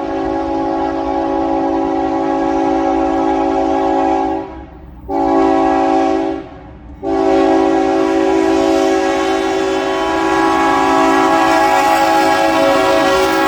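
Union Pacific freight locomotive air horn blowing a long blast, a short blast about five seconds in, then another long blast from about seven seconds in, the short-then-long close of a grade-crossing signal. The noise of the passing train grows beneath the horn toward the end.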